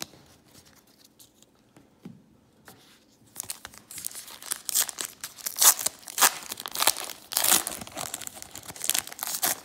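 Foil wrapper of a 2018 Panini Donruss baseball card pack being torn and peeled open by hand, a run of sharp crinkling crackles starting about three seconds in after a few faint taps.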